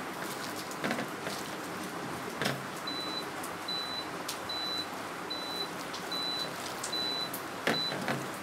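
Hands squelching and kneading mashed fish, onion and chilli on a plate, with a few soft knocks. From about three seconds in, a high electronic beep repeats seven times, evenly spaced under a second apart.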